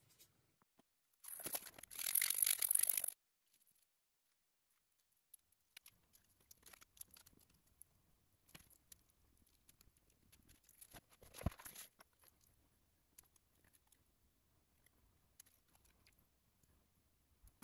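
Quiet hand-handling of small plastic pipe fittings and a two-part epoxy syringe: scattered light clicks and taps, with one louder knock about two-thirds of the way through. Near the start, a loud burst of noise about two seconds long.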